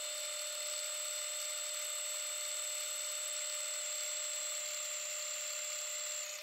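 Bernina 1008 sewing machine running at a steady speed, its motor whining as it stitches a decorative stitch through denim; the sound eases off slightly right at the end.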